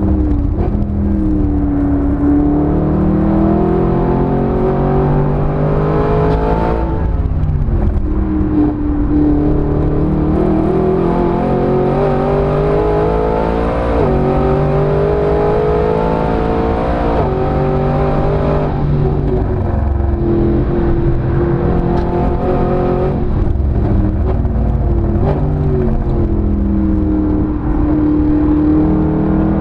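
Mercedes SLS AMG's 6.2-litre V8, heard from inside the cabin while the car is driven hard on track. The engine note climbs for several seconds at a time and then drops sharply at each gear change, again and again.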